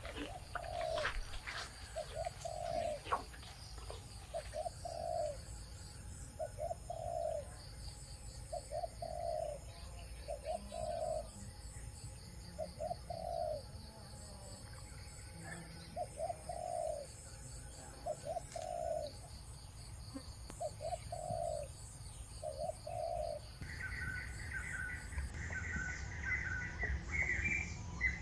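A bird calling with short low notes, mostly in pairs, repeated over and over for about twenty seconds, over a steady high insect drone. Near the end, a different bird's higher chirping notes take over.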